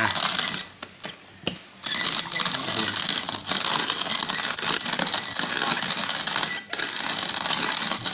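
Hand-cranked wooden box coffee grinder crunching whole roasted coffee beans as its crank is turned, a dense crackling grind that drops out briefly about a second in and again near the end.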